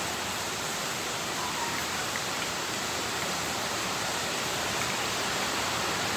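A steady, even hiss with no distinct events in it.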